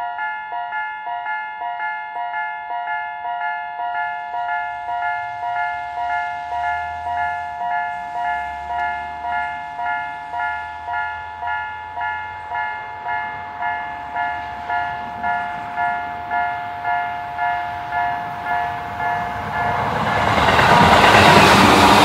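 Japanese railway level crossing's electronic warning bell dinging steadily in its shrill, high-pitched tone, just under two dings a second. An electric train's running noise grows from about two-thirds of the way in and becomes the loudest sound as the train passes over the crossing near the end.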